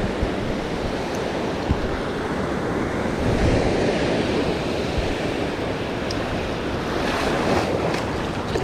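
Ocean surf washing in and out, with wind blowing across the microphone; the wash swells about three seconds in and again near the end, with a few faint clicks.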